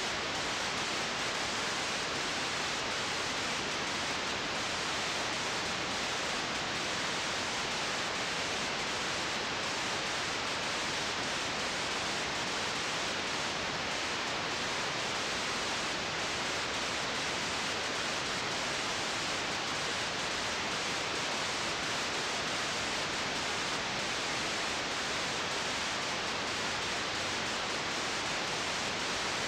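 Steady, even hiss from a blank, unrecorded stretch of an old home-movie tape transfer, with nothing else heard.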